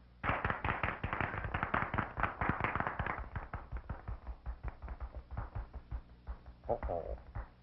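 Early sound-cartoon soundtrack: music with a dense run of rapid crackling clicks and taps. The clicks are thickest and loudest in the first three seconds, then thin out, and a short wavering note sounds near the end.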